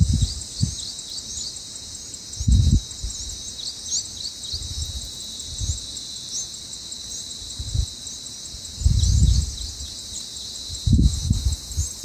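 Steady high insect chorus with many short high chirps over it, and a few low rumbles, the longest about nine seconds in.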